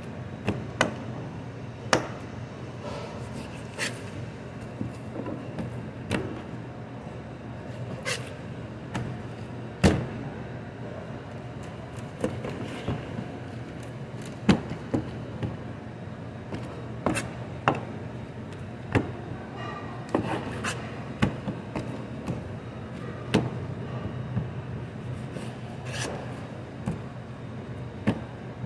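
Large knife cutting raw beef on a plastic cutting board: irregular sharp knocks of the blade and meat against the board every second or two, the loudest about ten seconds in, over a steady low hum.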